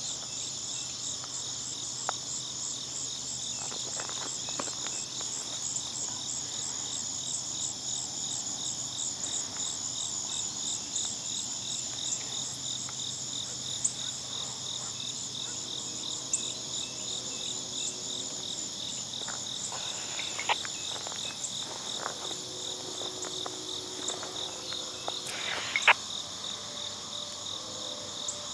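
A dense chorus of crickets and other insects chirping steadily, high-pitched with a rapid, even pulsing. A couple of brief knocks stand out in the second half.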